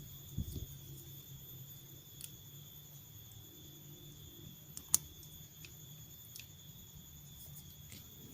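Fiber-optic fast connector being pushed together by hand, with one sharp click about five seconds in as it locks into place. A soft knock near the start and a few faint ticks come before and after it, over a faint steady high-pitched tone.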